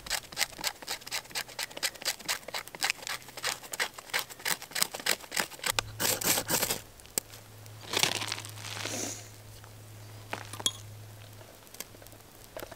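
Quick scraping strokes of a knife, several a second, followed by a fire steel (ferrocerium rod) struck with the knife: two longer hissing scrapes about two seconds apart that throw sparks into birch bark, which catches.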